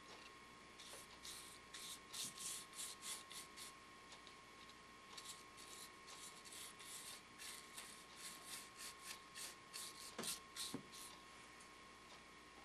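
Faint swishes of a stiff bristle brush worked quickly back and forth over the carved, wood-burned scales of a wooden snake, several strokes a second, in two runs with a short pause a few seconds in. A faint steady tone runs underneath.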